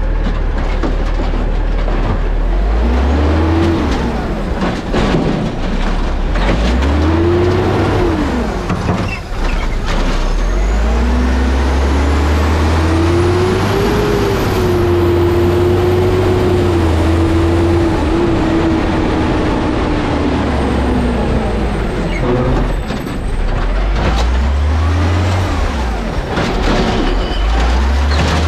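Automated side-loading garbage truck's diesel engine revving up and falling back several times, once held up for several seconds in the middle. The revs drive the hydraulic arm, which lifts a recycling cart near the end.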